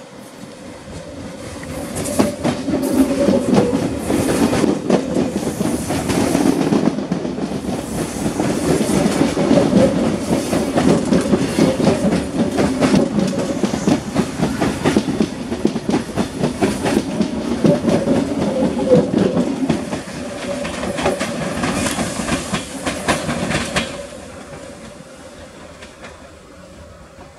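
Mafersa-built CPTM Série 1700 electric train passing close by, its wheels clattering over the rail joints with a steady tone running through the noise. The sound builds over the first two seconds and stays loud until about 24 seconds in, then fades as the train moves off.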